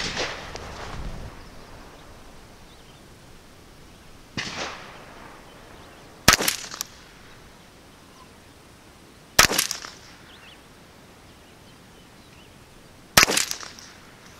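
Three .22 LR shots from a Ruger 10/22 semi-automatic rifle, fired slowly about three to four seconds apart, each a sharp crack with a short tail. A softer noise comes about four seconds in.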